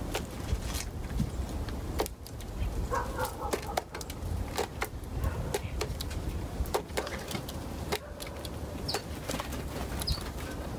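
Outdoor ambience with a steady low rumble and many scattered sharp clicks and taps, with a few short high bird chirps about nine and ten seconds in.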